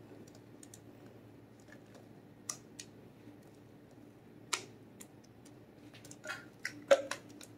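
Silicone spatula scraping chocolate pudding out of a glass mixing bowl, with scattered light clicks and taps against the glass, a small cluster of them near the end, over a faint steady hum.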